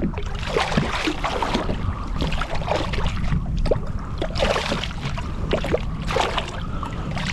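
Water splashing and sloshing at the side of a kayak in uneven bursts as a hooked striped bass thrashes at the surface and the angler reaches into the water to grab it, over a steady low wind rumble on the microphone.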